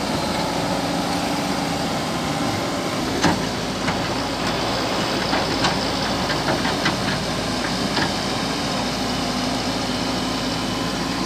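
JCB excavator's diesel engine running steadily, with a string of short sharp knocks and clatters between about three and eight seconds in.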